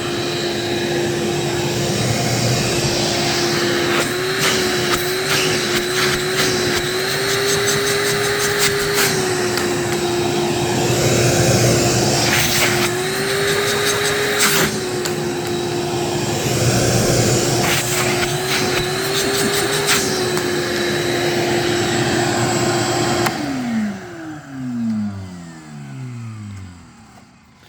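Craftsman CMXEVBE17594 12-gallon wet/dry shop vac running steadily, its motor pitch rising a little now and then, with scattered clicking. Near the end it is switched off and its motor winds down with a falling whine.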